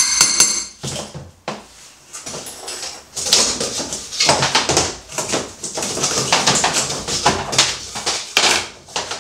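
Swollen click-fit laminate floorboards being prised up with a flat tool: a ringing strike near the start, then a busy run of knocks, scrapes and clatter as the boards are levered apart and lifted.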